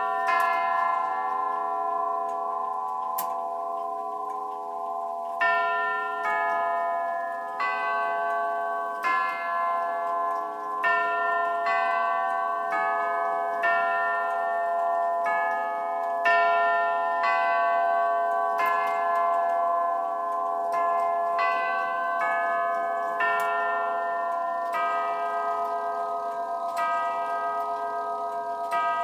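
Jauch tubular-chime clock movement striking its five chime tubes one at a time with its hammers, each note ringing on and overlapping the next. One strike at the start, a pause of about five seconds, then a strike every one to two seconds.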